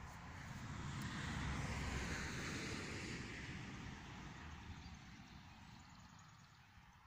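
A vehicle passing by: a wash of engine and road noise that swells over the first two seconds, then fades away over the next four.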